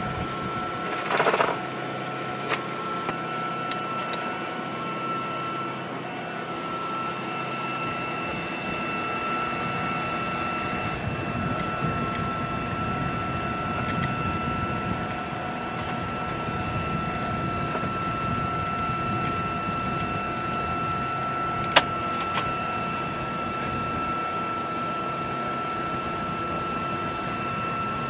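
Steady machinery drone with a constant high whine, over which a door-mounted machine gun and its linked ammunition belt are handled: a short rattle about a second in, a few light metallic clicks, and one sharp metallic clack about 22 seconds in.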